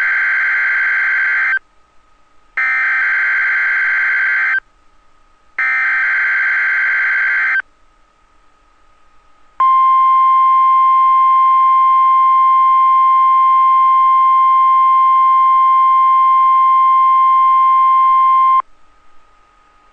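Emergency Alert System broadcast on NOAA Weather Radio: three SAME header bursts, each about two seconds of harsh warbling digital tones with a second's gap between them. Then the weather radio warning alarm tone, one loud steady beep held about nine seconds that cuts off sharply. This sequence opens a Required Weekly Test.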